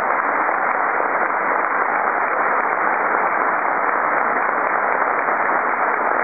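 Audience applauding, steady and unbroken.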